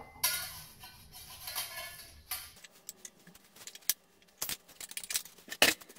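A knife scraping around the inside edge of a pie dish to loosen a baked pie, followed by scattered clinks and knocks of the dish against a plate as the pie is turned out, with one sharper knock near the end.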